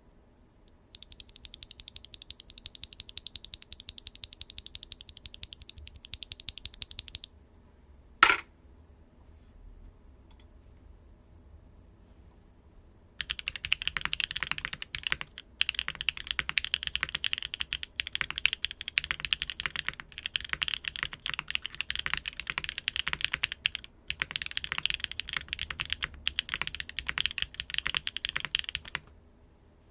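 Typing on a mechanical keyboard built with WingTree YuYing linear switches in a Neo 75 CU with a carbon fiber plate and no foam: rapid keystrokes in two long runs, the first from about a second in to about seven seconds, the second from about thirteen seconds until near the end, with a single louder click around eight seconds.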